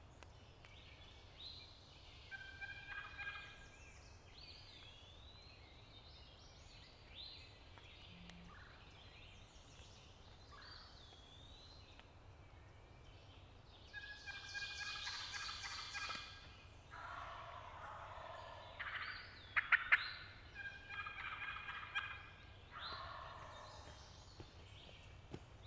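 Wild turkey gobbler gobbling several times, with one early gobble and a run of gobbles in the second half, the loudest about halfway through.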